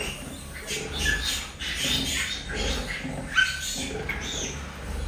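Animals calling: a run of short, irregular calls, two of them with a brief high-pitched note, the sharpest one a little past halfway.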